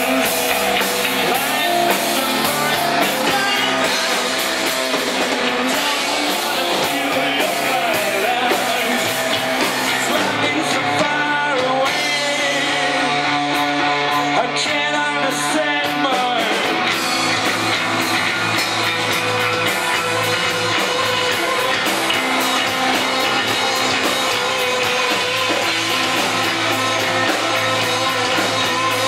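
Live rock band playing: electric guitar, bass guitar and drum kit, with sung vocals.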